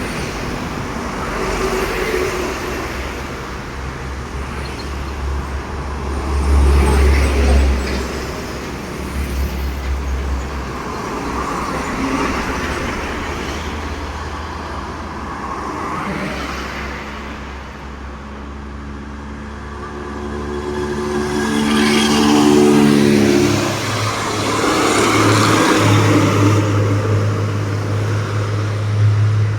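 Modified Hino dump trucks driving past with their diesel engines rumbling, the rumble swelling about a quarter of the way through. A steady trumpet air horn is held for about three seconds roughly two-thirds of the way through.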